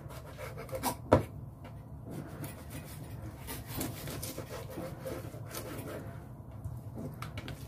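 Kitchen knife slicing squid on a plastic cutting board: soft knocks and scrapes of the blade on the board, with one sharper knock about a second in, over a steady low hum.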